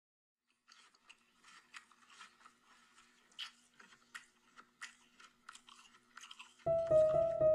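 A person chewing a mouthful of chicken sandwich, with quiet, irregular crunching bites. A piano comes in loudly near the end.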